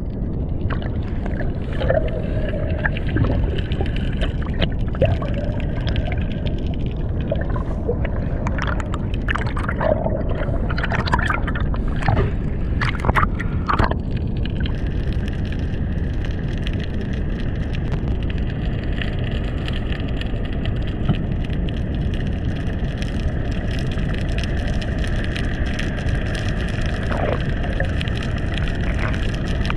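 Underwater ambience through a camera housing: a steady low rush of moving water in a strong current. Scattered bubbling and clicks come through the first half, and faint steady tones sit under the rush in the second half.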